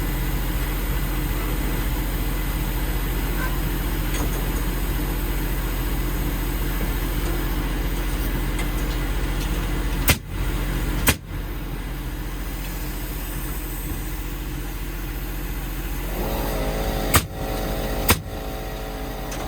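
A steady low engine hum, with sharp clicks: two about ten seconds in and two more near the end.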